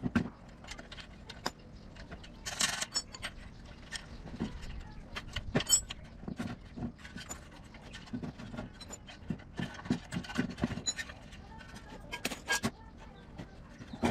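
Irregular clinks, knocks and scrapes of metal tools and parts being handled, with a couple of sharper metallic hits that ring briefly.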